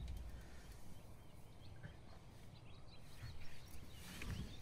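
Faint outdoor ambience: a few short, scattered bird chirps over a low wind rumble, with a couple of soft thumps near the end.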